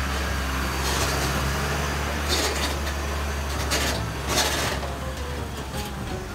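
Tata log truck's diesel engine running as it passes close by, a steady low hum, with several short hisses over it.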